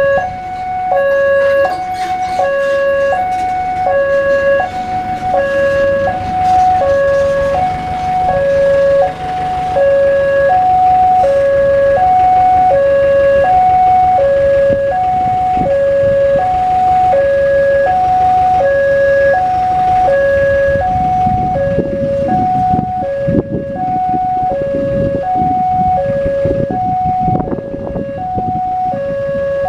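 Electronic level-crossing warning alarm sounding from a pole loudspeaker: two tones, one high and one low, alternating steadily at about one pair a second. It warns that a train is coming and the barriers are down. Road vehicle engines run underneath, louder about two-thirds of the way in.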